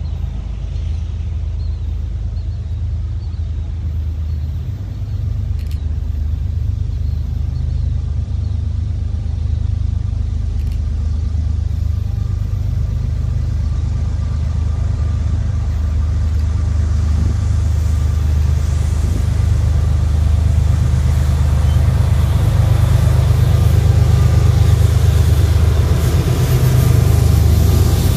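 A CSX freight train's diesel locomotives running, heard as a steady low engine sound that grows gradually louder as the train nears. A hiss builds over the last third.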